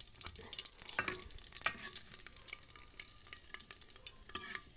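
Whole spices (cumin, ajwain, fenugreek and coriander) sizzling in hot oil in an aluminium pot: the tempering, or tadka, stage. They are being stirred, with scraping and short clinks against the pot.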